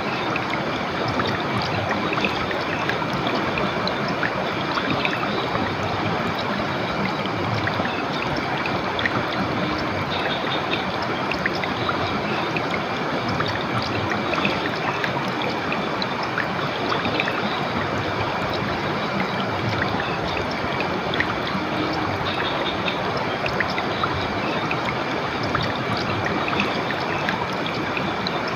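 River water flowing steadily over rocks: an even rush with many small splashes and trickles.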